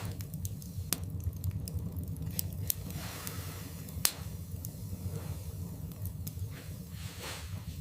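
Wood fire burning in a fireplace: a steady low rumble with frequent sharp crackles and pops of the burning logs, one louder pop about four seconds in.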